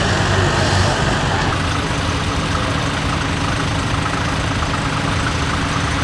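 Diesel tractor engine running steadily. About a second and a half in the sound changes and a steady low engine hum comes up.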